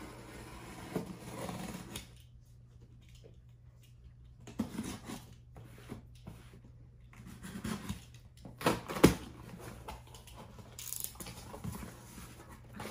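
Packing tape on a cardboard shipping box being cut with a small blade, then the box handled and its flaps pulled open: scraping, rustling and light knocks on cardboard, with one sharp knock about nine seconds in.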